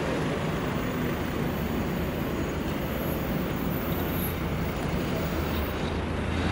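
Steady city road traffic noise: a continuous wash of passing and idling cars with a low engine hum.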